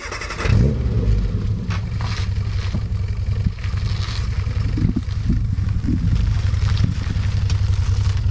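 Classic Mini Cooper's four-cylinder engine running at idle, a steady low rumble that gets louder about half a second in.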